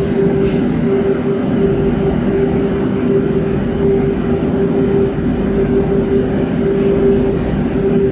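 Roller conveyor shot blasting machine running: a loud, steady mechanical drone with a constant hum, and no pauses or changes.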